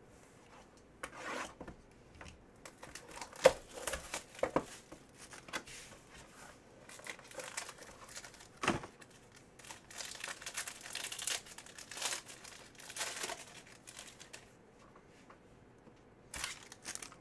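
Cardboard trading-card box being torn open and a foil card-pack wrapper crinkling and tearing, in short irregular bursts. A sharp click about three and a half seconds in is the loudest sound.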